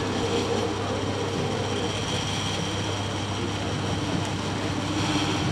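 Steady room noise, an even hiss with a constant low hum and faint steady high tones underneath, in a pause between speakers in a large hall.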